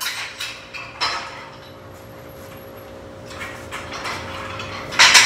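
Cable crossover machine worked through a set of cable flies: cables running over the pulleys and the weight-stack plates rattling and clinking, with a loud clatter near the end.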